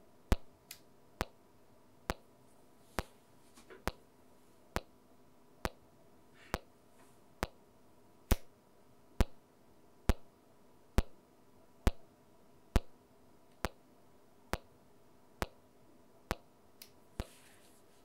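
Test clicks from a pulse generator, driven hot through a power amplifier, a sharp click a little under once a second. They are heard on the direct signal and through a Radial JS3 mic-level transformer pushed past its rating at amplifier level, where the low end rolls off.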